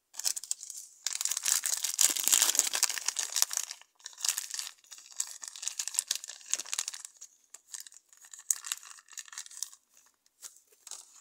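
Plastic zip-lock bag crinkling and rustling as a piece of modelling clay is taken out of it: dense and loudest over the first four seconds, then in shorter bursts that thin out to scattered crackles.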